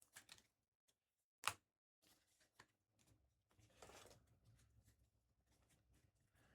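Near silence with faint handling of trading cards, one short sharp click about a second and a half in and a soft rustle later.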